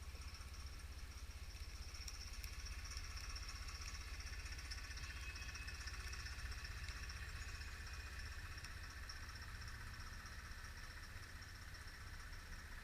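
Large wood bonfire burning: a steady low rumble of flames with a constant high hiss and a few faint crackles.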